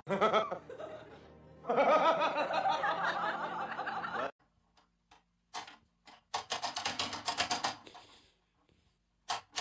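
Music with a person laughing in short bursts, broken by two stretches of near silence.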